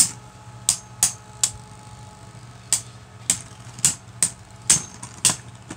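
Two Beyblade Burst spinning tops whirring in a plastic stadium and clacking against each other in about ten sharp hits at uneven intervals.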